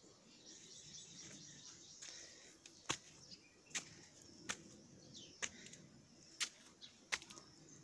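Quiet outdoor ambience with faint high bird chirps, and six sharp clicks, about one a second, from about three seconds in.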